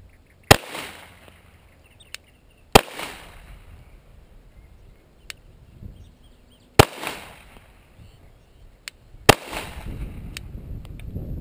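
Four single shots from a 9mm Glock 19 pistol, slow aimed fire spaced two to four seconds apart, each followed by a short echo. Fainter clicks fall between the shots.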